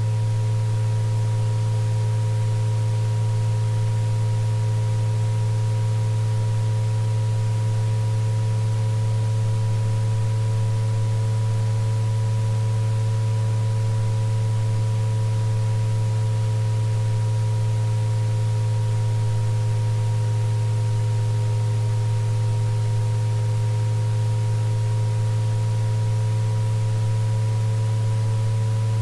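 Electronically generated sound-therapy tones for tinnitus relief, held without a break. A loud low hum-like tone carries most of the sound, with several fainter higher tones above it that drift slowly and slightly in pitch, over a faint hiss.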